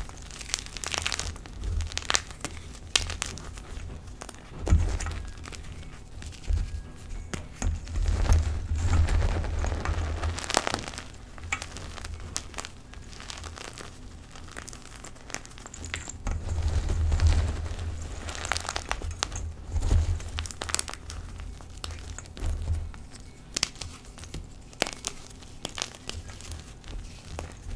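Hands crushing and rubbing chunks of gym chalk into powder in a metal bowl: an irregular run of crumbling, crunching crackles, with dull low thumps where the hands press down.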